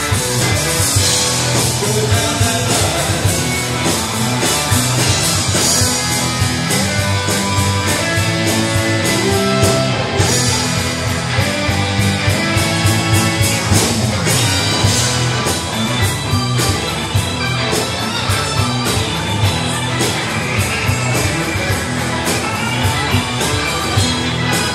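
Live blues-rock band playing: electric guitars, bass, drums and electric piano over a steady drum beat.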